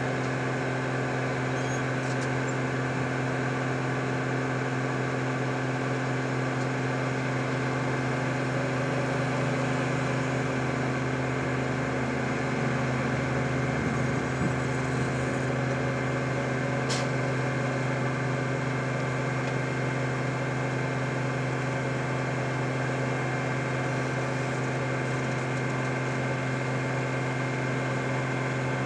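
Vögele Super 1800-1 asphalt paver's diesel engine running steadily as the tracked paver moves slowly under its own power, an even low hum, with one brief sharp click a little past halfway.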